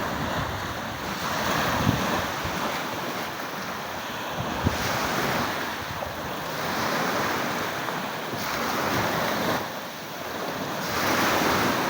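Sea waves washing ashore, the rush swelling and fading every couple of seconds, with wind gusting on the microphone.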